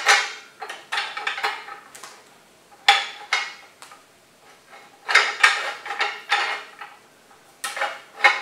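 Metal clinking and rattling in several short bursts as a steel rope guide band with riveted cast-iron wedge pieces is worked around the grooved wire-rope drum of a Demag P hoist.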